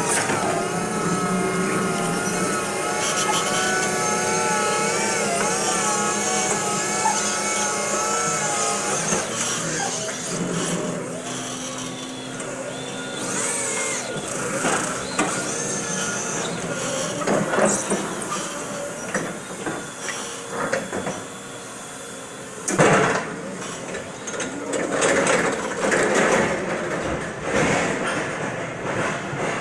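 Crown stand-up reach truck working a pallet high in the racking: its lift motor hums while the mast moves, with clicks and a sharp knock about 23 seconds in. A wavering singing voice or music is heard over the first third.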